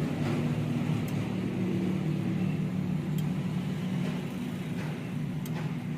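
An engine running steadily, a low hum of even pitch with a few faint clicks over it.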